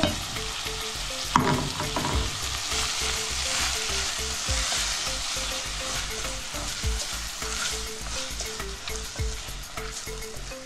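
Chopped tomatoes and green capsicum sizzling in hot oil in a stainless steel pot, stirred with a wooden spoon that knocks and scrapes against the pot now and then.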